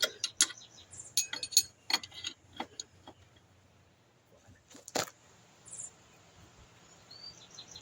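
Metal hand tools clinking and clicking as wrenches are handled and fitted on the motorcycle's chain-adjuster hardware. Irregular sharp clinks come thick over the first few seconds, then one louder knock about five seconds in.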